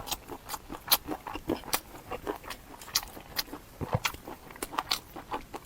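Close-miked chewing and mouth sounds of a person eating: an irregular run of short wet clicks and smacks, several a second.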